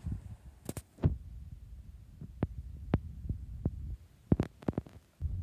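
Scattered clicks and low thumps of handling noise, several in quick succession about a second before the end, with the 6-inch LED message fan switched off and its running noise gone.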